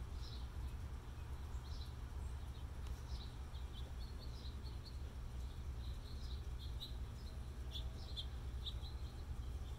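Small birds chirping in the background: many short, high chirps, some in quick runs, over a steady low rumble.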